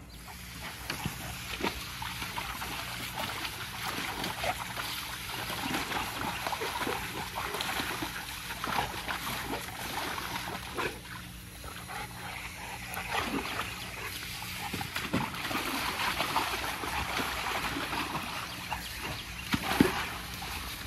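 Water spraying steadily from a garden hose nozzle into a shallow plastic paddling pool, with a dog splashing through the water. There is a sharper, louder sound a second before the end.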